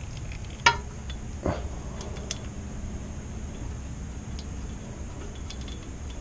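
Two hard knocks of objects being handled: a sharp ringing metallic clink, then a duller knock under a second later, followed by a few faint ticks, over a steady low rumble.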